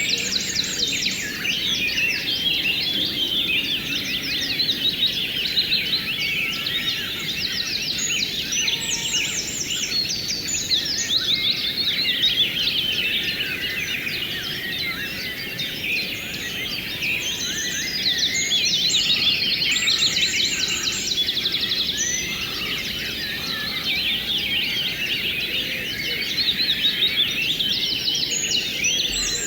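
Many birds singing at once, a dense chorus of overlapping chirps and trills, over a faint steady rush of flowing water.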